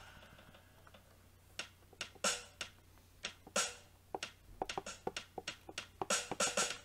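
Sampled drum-kit hits from a software standard drum kit, triggered from a mini MIDI controller's drum pads. The hits are irregular, starting about a second and a half in and coming closer together near the end.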